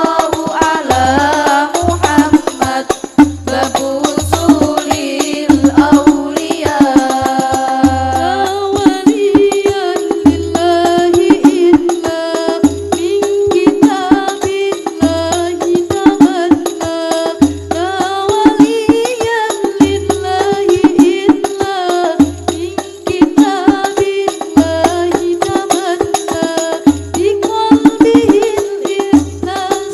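Al-Banjari ensemble playing: rebana frame drums slapping a fast, dense rhythm over evenly repeating deep bass-drum beats, with voices singing a devotional melody.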